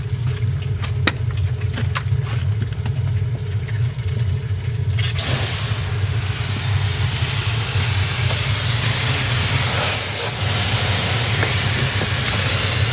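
Pressure washer running with a steady low hum; about five seconds in the trigger opens and the water jet starts spraying with a loud, steady hiss.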